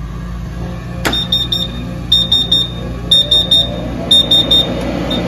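A power switch clicks about a second in, and the Monport fume-extractor fan motor spins up with a rising whine over a steady low hum. Throughout, an electronic alarm beeps in quick groups of about four, one group each second.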